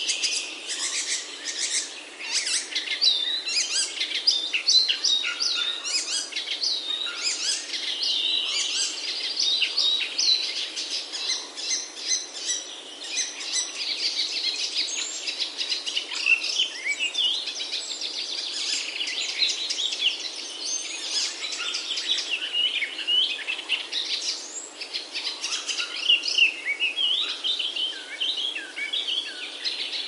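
Small songbirds chirping and singing in a dense, overlapping chorus of quick high calls that runs on without a break. No pigeon cooing is heard.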